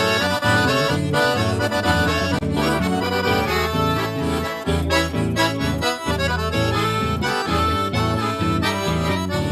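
Instrumental break in a gaúcho song: an accordion plays the melody over a steady, rhythmic bass accompaniment, with no singing.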